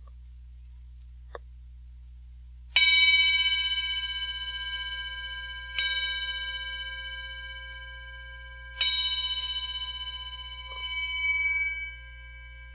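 Meditation bell struck three times, about three seconds apart, each stroke ringing out and slowly fading, with a brief swell in the ringing near the end. These are the ending bells that mark the close of a period of silent contemplation.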